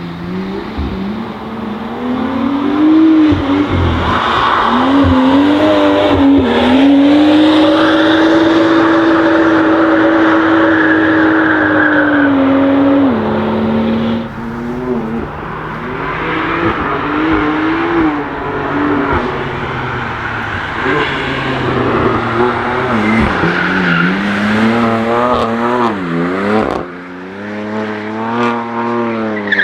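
Car engines revving and passing on a wet race track, their pitch rising and falling with gear changes and lifts. In the middle one engine holds a steady high note for several seconds. Near the end the revs swing quickly up and down.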